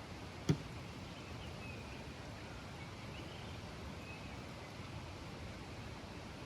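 Quiet rural outdoor ambience: a steady hiss of background noise with a few faint bird chirps, and one sharp click about half a second in.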